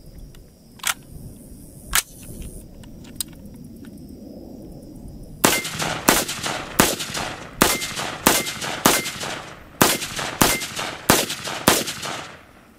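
Daewoo K1A1 5.56 mm rifle firing about a dozen single shots at a quick, steady pace, starting about five seconds in. Two sharp clicks come earlier.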